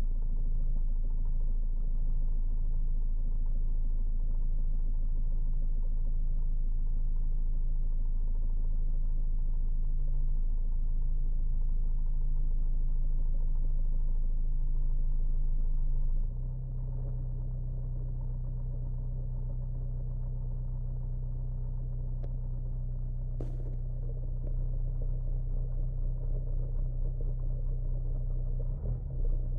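Renault Clio II's 1.5 dCi four-cylinder common-rail diesel idling, heard inside the cabin. Its steady drone shifts and drops slightly a little past halfway, there is a single sharp click a few seconds later, and near the end the sound pulses unevenly. By the owner's account the car has a cold-start fault in which the idle sags from about 900 to about 200 rpm for around half a minute.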